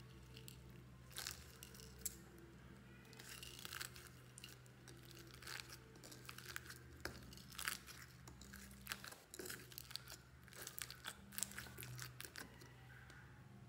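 Hands squishing, stretching and pressing foam-bead slime, giving irregular crackles, pops and sticky tearing sounds that come thickest in the second half.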